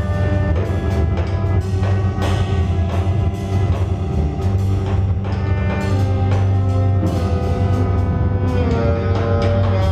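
Live improvised experimental music: a drum kit struck often, with cymbal and drum hits, over a steady low drone and long held pitched tones, with saxophone in the mix.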